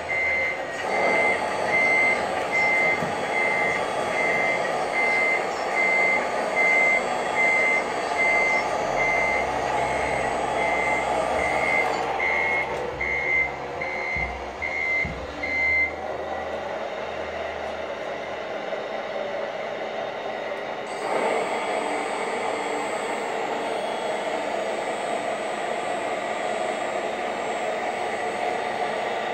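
Scale RC tipper truck's sound module giving a steady run of high reversing-style warning beeps, about one and a quarter a second, over a steady truck-engine drone while the tipper is worked. The beeps stop about sixteen seconds in and the drone carries on.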